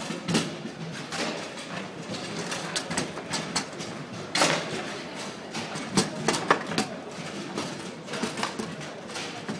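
Foosball table in play: irregular sharp knocks and clacks as the ball is struck by the player figures and bangs against the table, with a louder crack about four and a half seconds in and a few more around six seconds, over a steady background murmur.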